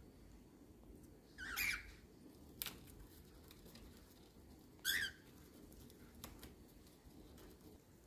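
Cockatiel giving two short chirps, one about a second and a half in and a shorter one about five seconds in, with a single sharp tap between them.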